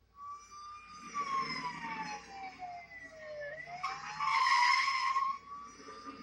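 Police car siren on a film soundtrack, played from a TV, wailing slowly: its pitch falls for about three seconds, then rises again. Tyres screech briefly about four seconds in.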